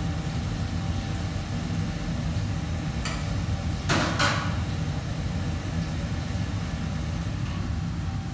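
Steady low rumble of kitchen equipment running, with a faint click about three seconds in and a sharp clatter of metal cookware about four seconds in.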